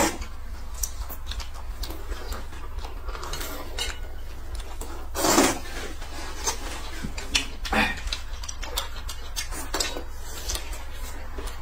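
Noodles being slurped from a metal bowl, with chopsticks clicking and scraping against the bowl. The loudest slurp comes about five seconds in and a shorter one near eight seconds.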